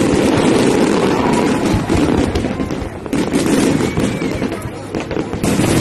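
A fireworks display: shells bursting and crackling in quick succession, mixed with music.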